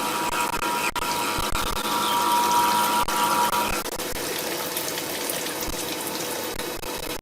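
4-axis CNC machining center cutting a spiral bevel gear under flood coolant: a steady hiss of spraying coolant with a steady whine from the cut that stops about four seconds in.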